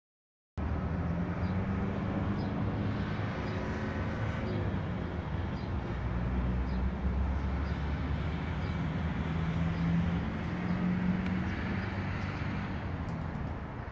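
Steady outdoor traffic noise: a low road rumble with the hum of car engines running. A few faint short high chirps come in and out above it.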